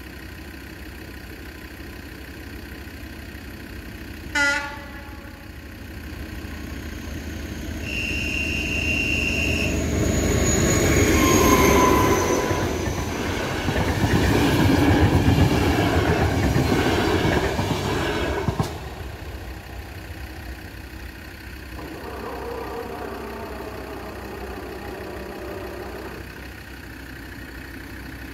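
A train sounds a short horn blast, then a longer steady blast a few seconds later, and passes over the level crossing with loud rumbling wheels for about eight seconds before the noise cuts off. Quieter sound follows.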